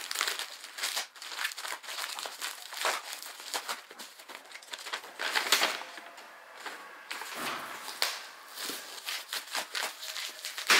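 A plastic courier mailer crinkling as it is opened by hand, then a folded paper sheet rustling as it is unfolded: irregular crackles with no steady rhythm.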